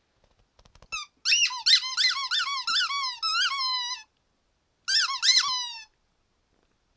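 Rubber squeaky toy being chewed by a Havanese dog: one short squeak, then a fast run of rising-and-falling squeaks, about three a second, then a pause and a second, shorter run.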